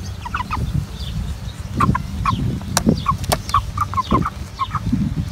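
Cornish Rock Cross broiler chickens clucking, a run of short calls about every half second, over low rustling and bumping as a hen is handled onto a scale. Two sharp clicks come near the middle.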